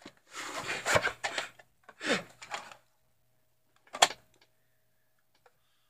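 VHS tapes in plastic cases being handled and slid along a shelf: two stretches of rubbing and scraping, then a single sharp click about four seconds in.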